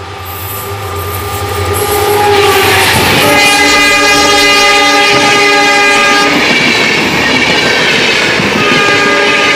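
Passenger train passing close by at speed, its wheels and coaches rushing and clattering, growing louder over the first two seconds as it arrives. The train's horn sounds a long, steady multi-tone blast about three seconds in, and again near the end.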